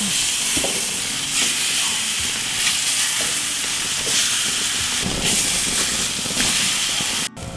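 Chile-marinated quail sizzling on a hot grill as the birds are laid on the grates: a steady loud hiss with a few light knocks, cutting off suddenly near the end.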